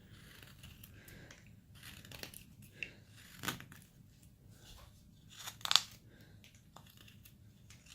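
Carving knife slicing basswood: about four short, dry, scraping cuts, the loudest about two thirds of the way through.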